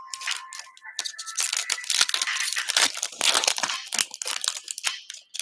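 Foil wrapper of a Prizm basketball card pack being torn open and crinkled by hand, a dense run of crackling rips and rustles.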